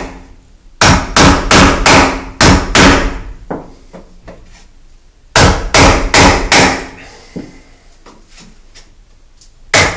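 Mini sledgehammer striking a chisel to chip out a concrete floor: a run of about six sharp blows, two or three a second, a pause, a second run of about five blows, then one more blow near the end.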